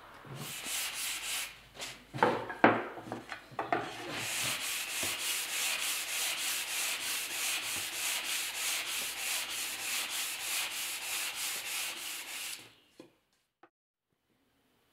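Sandpaper rubbed by hand back and forth along a black cherry dowel, in a steady rhythm of about three to four rasping strokes a second that stops abruptly near the end. A few irregular scrapes and sharp knocks come first, the loudest about two seconds in.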